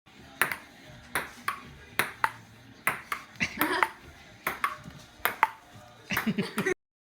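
A series of sharp ping-like clicks, roughly one every 0.7 seconds, some with a short falling ring after them, and a quick cluster of them near the end.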